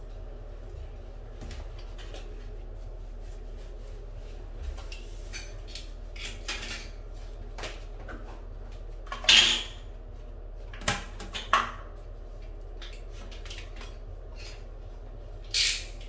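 Hand tools and strips of wood being handled and set down on a ceramic tile floor: scattered light clicks and clinks, with a few sharper clatters, the loudest about nine seconds in and another near the end.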